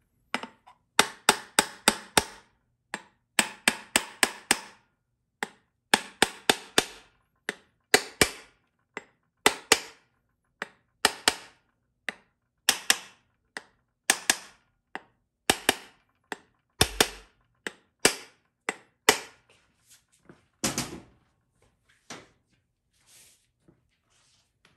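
Hammer taps on a GM TH400 transmission's oil pump, driving the pump down into the case around its threaded bolts. Sharp taps come in quick bursts of several strikes, then thin out to a few single taps after about twenty seconds.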